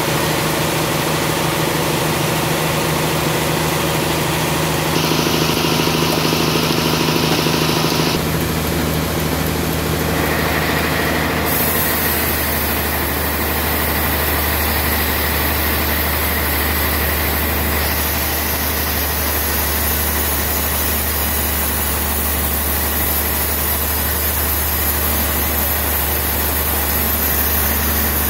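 Sawmill band saw running as it saws a trembesi (rain tree) log lengthwise into a slab: a loud, steady mechanical drone with hiss, its tone shifting abruptly a few times.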